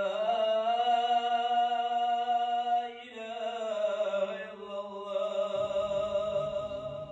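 A man's voice chanting in long, drawn-out held notes: one long phrase, a brief break about three seconds in, then a second long phrase.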